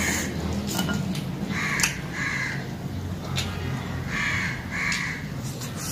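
A crow cawing, two harsh caws at a time, the pairs coming about every two and a half seconds. Small clicks from eating by hand are heard between the calls.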